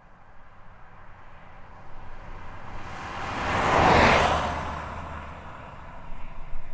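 A single car passing by on a highway: tyre and engine noise swell to a peak about four seconds in, then fade away.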